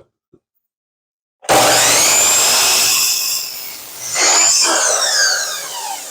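Sliding miter saw switched on about a second and a half in, its motor whining up to speed. The blade cuts through a 2x4 around four seconds in, then the motor spins down with a falling whine.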